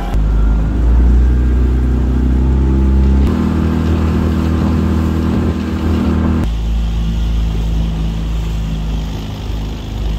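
A small fishing boat's outboard motor running steadily. The sound changes abruptly about three seconds in and again at six and a half seconds, as shots of the running boat are cut together.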